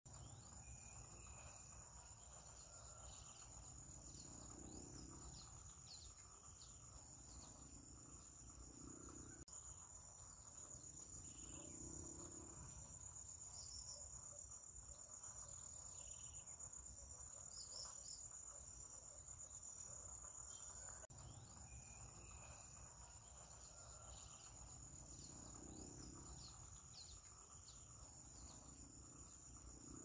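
Faint, steady high-pitched insect trill, like crickets or cicadas, with scattered short bird chirps over a low background hum.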